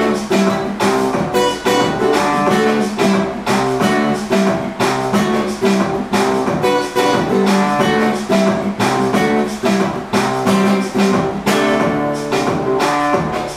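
Acoustic guitar strummed in a steady rhythm, repeating a chord pattern.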